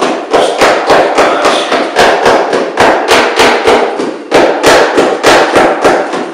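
Fast, repeated slaps and taps, about four a second, as a gloved hand packs wet concrete into a plastic J-drain curb drain to fill its voids.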